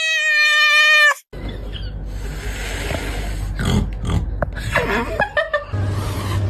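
AI-generated animal calls: a long, steady, high-pitched call that cuts off about a second in, then a low hum with a run of short calls and quick pitch glides.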